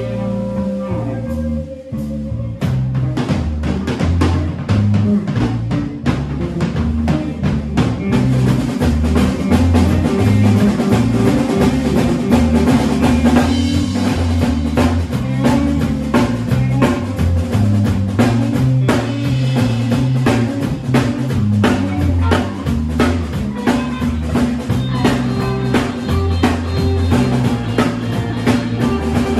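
Live rock band playing: drum kit, electric guitar and bass guitar. Held guitar notes give way, about two seconds in, to the full band with a steady drum beat under the bass line.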